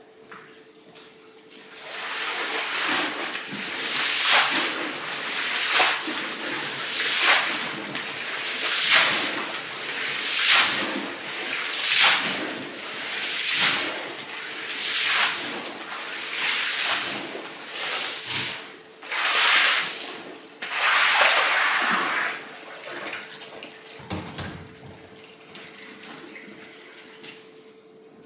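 Water swishing in rhythmic strokes during rug washing, about one stroke every second and a half, over a steady machine hum. The strokes stop a few seconds before the end.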